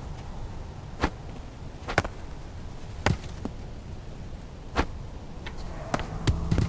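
Five sharp knocks, irregularly spaced a second or so apart, over a low, steady rumble.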